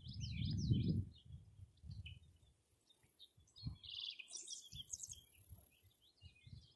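Wild birds singing and chirping in quick high phrases. Under them is a low wind rumble on the microphone, loudest in the first second.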